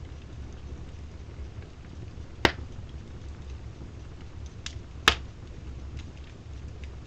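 Wood fire burning in a fireplace, crackling faintly over a low steady rumble, with two loud sharp pops about two and a half seconds apart and a smaller one just before the second.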